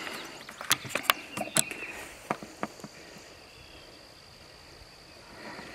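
Insects keep up a steady high hum while several sharp rustles and clicks come in the first few seconds and then die away, the sound of someone moving in tall grass.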